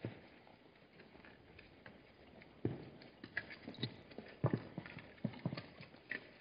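Hooves of Hartmann's mountain zebras clopping on hard ground as they move about: an irregular run of knocks and thuds starting a few seconds in, the loudest about halfway through.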